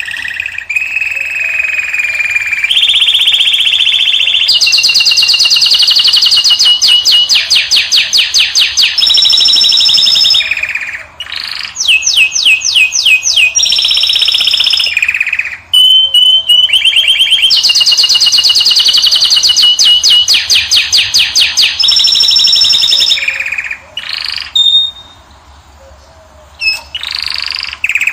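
Finch song, loud and close: long phrases of rapid trills of repeated notes and held high whistles, with short breaks and a quieter stretch near the end.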